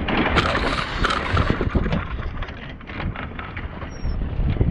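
Wind buffeting the microphone over water rushing and slapping against a sailboat's hull under way, with a louder rush of hissing spray from about half a second in to about a second and a half in.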